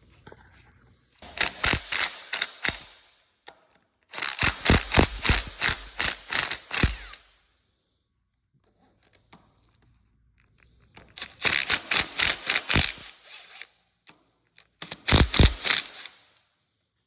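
Socket ratchet wrench clicking as a fastener is turned, in four runs of rapid, even clicks with pauses between.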